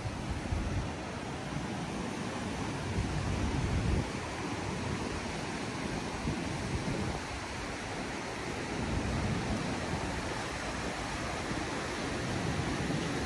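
Wind buffeting the microphone in uneven low gusts over a steady rushing outdoor noise.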